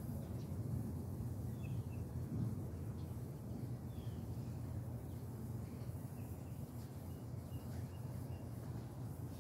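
Outdoor ambience: a steady low rumble, with several short, faint bird chirps scattered through it.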